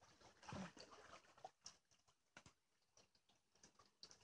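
Near silence, with faint scattered clicks and short rustles.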